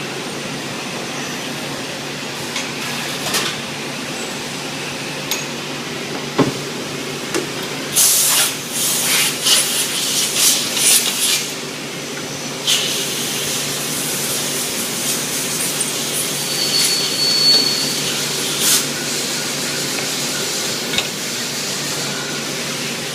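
Robot-loaded CNC machining cell running: a steady machinery hum with scattered metallic clinks and knocks. Around the middle comes a run of short, loud hissing blasts, followed by a steadier hiss.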